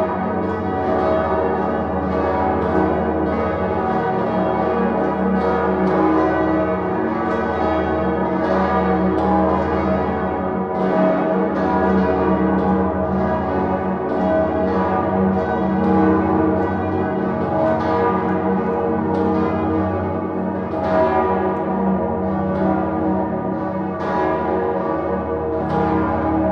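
Full peal of Salzburg Cathedral's seven swinging bells, led by the great Salvator bell and tuned E♭, G♭, B♭, D♭, E♭, G♭, A♭ in a minor motif. The bells ring together, their strikes overlapping densely and irregularly.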